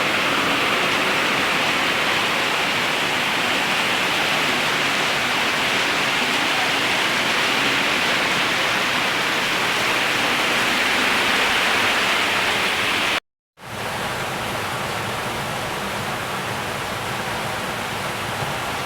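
Heavy rain falling in a steady, even downpour. It cuts out for a moment about 13 seconds in and comes back slightly quieter.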